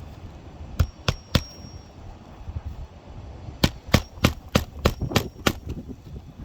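Hammer blows on metal with a short ringing tone after some strikes. Three blows about a third of a second apart, then after a pause a quicker run of about seven blows.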